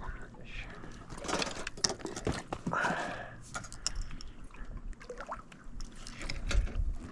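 Water splashing and sloshing around a small fishing boat, with scattered knocks and clatter.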